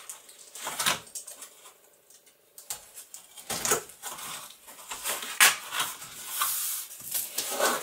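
Cardboard shipping box of stretched canvases being handled: a few sharp knocks and taps as the canvases and box flaps are moved, then a stretch of cardboard scraping and rustling near the end.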